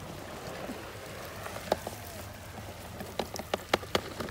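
Small bait fish in a landing net being tipped into a plastic bucket: a few sharp slaps and taps, one alone and then a quick cluster near the end, over the steady wash of the sea.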